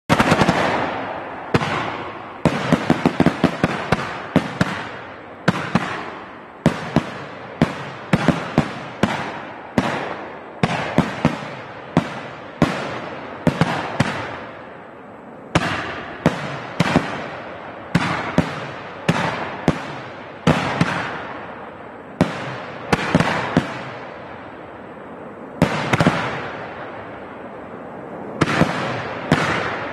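Fireworks going off in a long, irregular run of loud sharp bangs, some in rapid clusters of several a second, each dying away in a fading echo.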